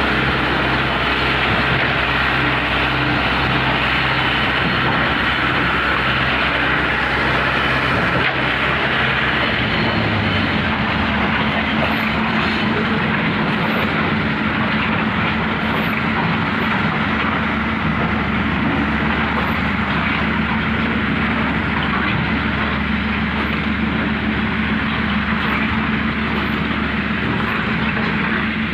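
Heavy concrete-plant machinery running steadily and loudly, its low engine note shifting to a different steady hum about ten seconds in.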